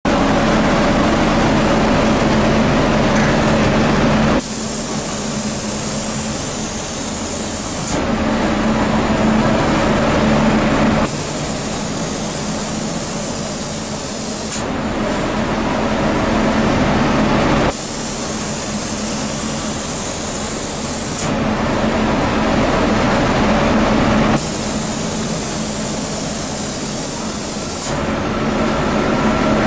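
Automatic spray gun of a 5-axis CNC spray painting machine hissing in four bursts of about three and a half seconds each as it makes passes over a wood door. Between the bursts the machine and booth keep up a steady hum.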